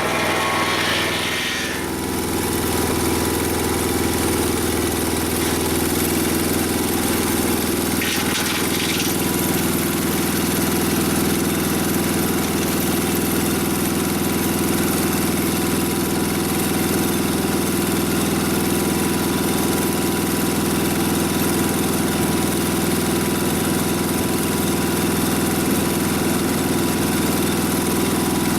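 Mobile Dimension sawmill's engine running steadily. A higher hiss drops away about two seconds in, and a short hiss comes again around eight seconds.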